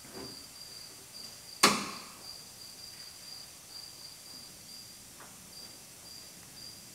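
Clamp snapping shut onto a sheet-metal outer rocker panel: one sharp metallic click with a short ring about a second and a half in, and a fainter click a few seconds later.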